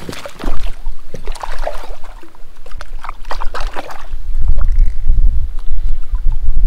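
Water splashing and sloshing, with many small clicks and knocks, as a freshly caught brook trout is handled in a landing net beside an inflatable pontoon. From about four seconds in, a loud low rumble takes over.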